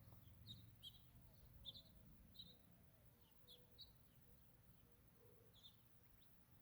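Faint birds chirping: short, high chirps scattered irregularly, a few close together at times, over a quiet low background hum.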